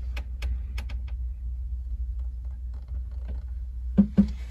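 Light clicks and taps of a handheld camera being moved about close to an inverter's casing, over a steady low hum. Two short, duller knocks come near the end.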